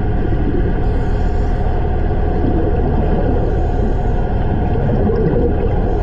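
Steady low rumble of water noise, recorded underwater.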